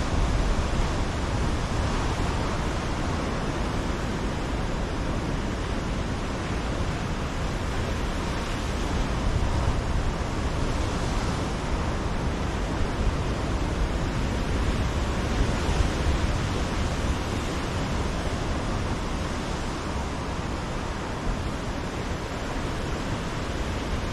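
Ocean surf breaking on a rocky shoreline: a steady wash of waves with a deep rumble, swelling a little now and then.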